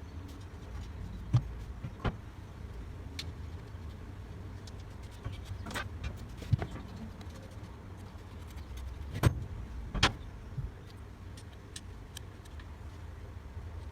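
Scattered knocks and clinks of parts being handled and unbolted as a Scott Bonnar cylinder mower is taken apart, over a low steady rumble.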